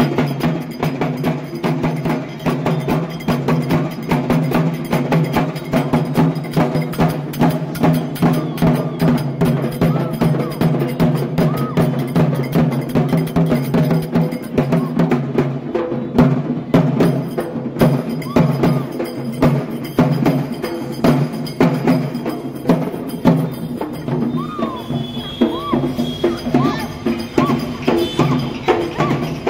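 Music driven by fast, dense drumming and clinking metallic percussion over a steady low drone.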